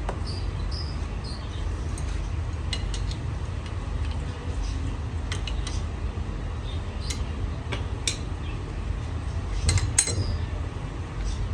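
Scattered sharp metallic clinks and taps of metal tools or parts over a steady low machinery hum, with a louder cluster of clinks about ten seconds in.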